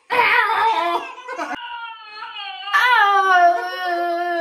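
Long, drawn-out wailing sea lion calls that sound like crying. A high wail falls in pitch and breaks off with a click; after a short gliding call, a louder, lower call is held steadily for a few seconds.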